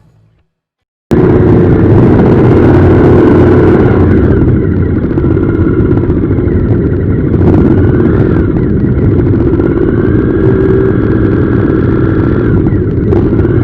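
Motorcycle engines running and revving close by, loud and continuous, cutting in abruptly about a second in after a moment of silence.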